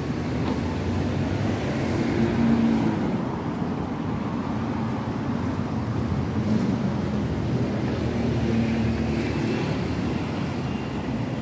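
City street ambience dominated by steady road traffic: vehicles running past with a continuous low engine hum.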